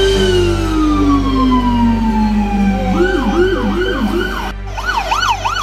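Fire engine sirens: one long wailing tone sliding down in pitch, then switching to a fast rising-and-falling yelp, about three sweeps a second. About four and a half seconds in, it cuts suddenly to another siren yelping fast, over a steady low hum.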